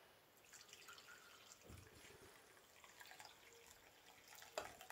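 Near silence: faint room tone with a few small scattered ticks and one sharper click near the end.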